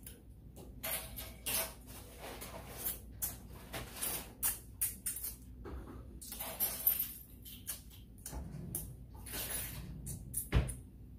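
Close-miked eating sounds of a person chewing meat eaten by hand: irregular short mouth smacks and chewing noises, with a low thump near the end.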